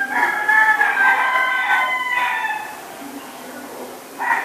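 A rooster crowing: one long crow lasting about two and a half seconds, then a second crow starting near the end.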